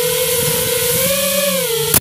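FPV racing drone's brushless motors whining steadily, their pitch rising a little about a second in and dropping again just before a sharp impact at the very end as the drone hits a plexiglass window.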